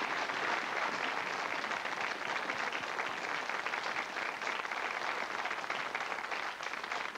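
Studio audience applauding: many hands clapping in a dense, steady patter that eases slightly near the end.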